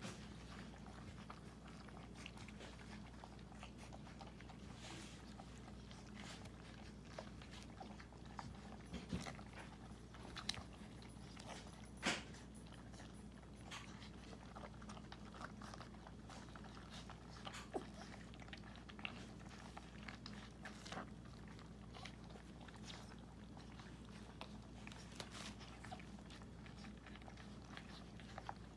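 Miniature pinscher puppies about five weeks old chewing and crunching solid food from a shared bowl, with faint scattered clicks, the sharpest about twelve seconds in, over a steady low hum.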